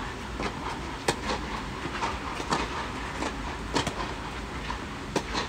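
Tennis ball being struck back and forth in a rally: sharp racket-on-ball pops a little more than a second apart, with fainter knocks between them.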